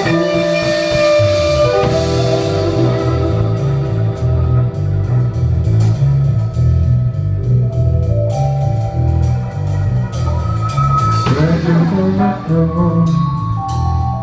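A rock band playing an instrumental passage live: drum kit with cymbals, electric guitar and keyboard over a steadily repeating bass line, with no vocals.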